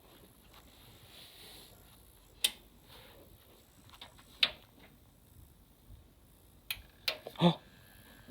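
Sharp clicks and taps of PC cables and components being handled, spaced a couple of seconds apart. About two-thirds in a faint steady high whine starts, and a short voiced sound comes near the end.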